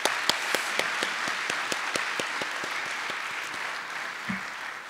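Audience applauding: many hands clapping in a dense steady patter that thins out near the end.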